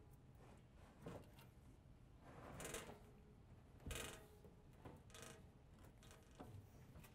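Near silence with faint handling sounds as a wall oven is pushed and settled into its cabinet: a brief scrape a few seconds in, then a soft knock about a second later and a fainter one after that.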